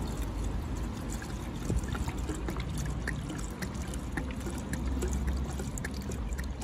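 Red ready-mix antifreeze poured from a plastic jug into a car's coolant expansion tank: a steady trickling pour with small splashes, as the cooling system is refilled.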